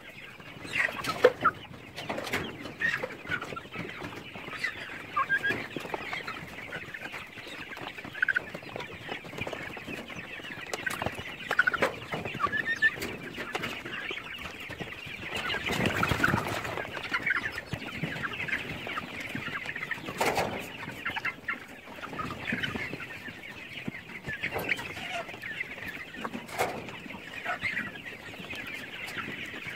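A large flock of young chickens clucking and chattering continuously, many short overlapping calls, with a few sharp knocks now and then.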